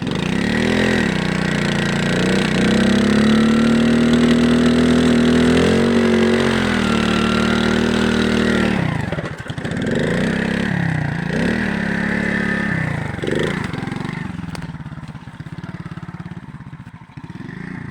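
Alpha moped's small single-cylinder engine revving hard. It climbs over the first few seconds and is held at high revs for several seconds, then drops. After that it is blipped up and down several times before fading away near the end.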